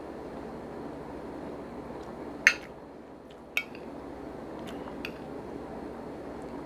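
Cutlery clinking against a dish: two sharp clinks, the loudest about two and a half seconds in and another a second later, then a few lighter taps, over a steady low background hum.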